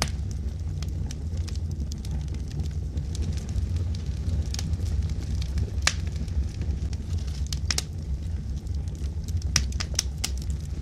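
Wood fire burning in a fireplace: a steady low rumble of flames with irregular sharp crackles and pops from the logs, a few louder snaps scattered through.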